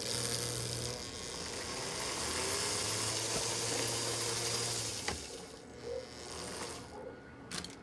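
Small electric motor and freshly greased gears of a 1937 American Flyer #1680 tinplate locomotive running steadily on power fed straight from the transformer leads, with a hum under a high whirr. It stops with a click about five seconds in, and a few light clicks follow near the end.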